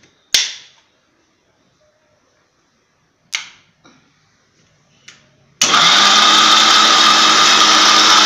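Electric mixer-grinder with a pressure-style jar lid: a few sharp knocks as the lid is seated and held down, then the motor switches on about five and a half seconds in and runs loud and steady at full speed, grinding green chutney to a fine paste.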